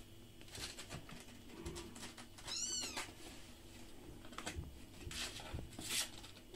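A kitten mews once, a short high call that rises and falls in pitch about two and a half seconds in. Around it are scratching and rustling sounds as it clambers over the edge of a cardboard box.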